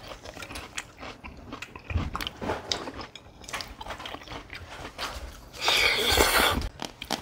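People eating at a table: chewing and biting with many small clicks. Near the end comes a loud noisy burst lasting about a second.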